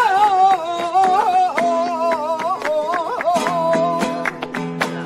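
Flamenco music: a voice sings a wavering, ornamented line over acoustic guitar, with steady rhythmic hand-clapping (palmas). The voice drops out about four seconds in while the guitar and claps go on.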